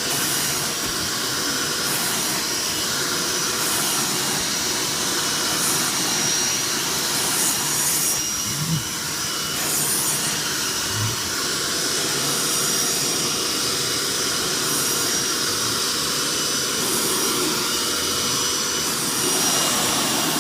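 Hoover SteamVac SpinScrub 50 carpet cleaner running with a steady motor whine, its suction pulling dirty water and cleaning solution back out of upholstery fabric through the hand tool. A hiss surges every couple of seconds as the tool is stroked over the cushion.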